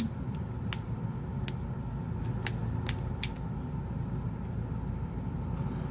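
A handful of small sharp plastic clicks, mostly in the first three and a half seconds, as a Nokia 1 Plus phone's plastic housing parts are pressed and clipped into place, over a steady low hum.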